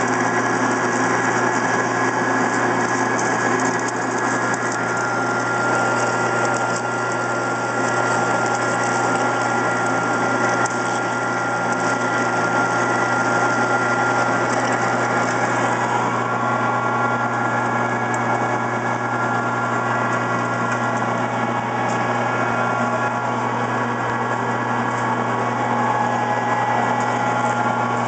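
Benci TY-C0632 metal lathe running steadily under a heavy dry cut in mild steel (3/8-inch depth of cut at 70 rpm): a constant motor hum and drive whine over an even hiss from the cutting.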